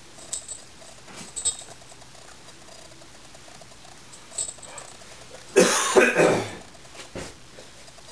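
Airedale terrier puppies playing rough: light scratches and ticks of scuffling, then a loud sound from the pups lasting about a second, a little past halfway, dropping in pitch at its end.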